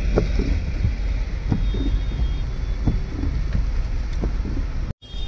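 Car cabin noise while the car waits in rain traffic: a steady low rumble with soft knocks about every second and a half. It cuts off abruptly near the end.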